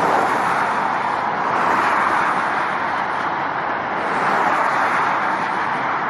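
Road traffic noise from cars driving along a multi-lane highway: a steady rush of tyre and engine noise that swells slightly as cars pass.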